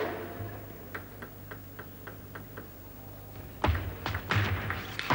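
Table tennis ball bounced repeatedly before a serve: a quick run of light, even ticks, about six a second. Then, near the end, the serve and a short rally: sharper irregular clicks of the ball off bats and table.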